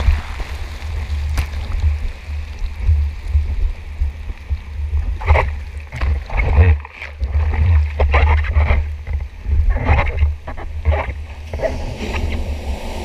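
Sea water sloshing and splashing around a surfboard-mounted action camera in its waterproof housing, under a heavy low rumble of water and wind buffeting the housing. Irregular sharp splashes come in clusters about five, eight and ten seconds in.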